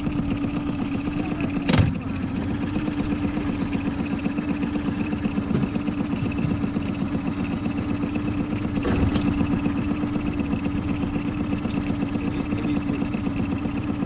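Outboard motor on a small aluminium boat running steadily at low speed. A single sharp knock sounds about two seconds in.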